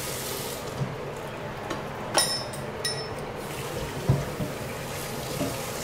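Kitchen tap running into a stainless steel sink as a pan is rinsed under it, with two short ringing metal clinks a little past two seconds in and a dull knock about four seconds in.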